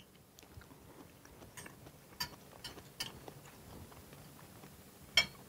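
Forks clicking against china dinner plates as food is eaten: a few light, separate clicks, the sharpest near the end.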